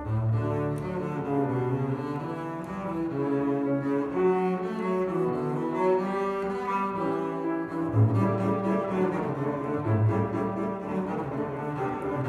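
Double bass played with a bow in a classical concerto solo, a line of sustained notes in its higher register that drops back to low notes about eight seconds in.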